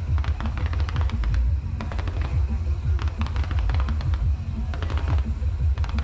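Fireworks going off in rapid, crackling volleys like gunfire, many reports a second, over music with a heavy, pulsing bass.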